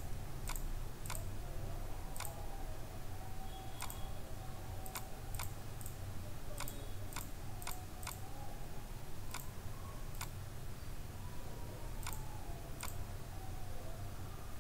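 Computer mouse clicking: a dozen or more short, sharp clicks at irregular spacing, over a steady low hum.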